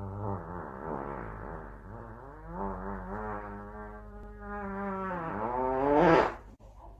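A dog howling in long, wavering tones that rise to a loud, high peak about six seconds in, then break off.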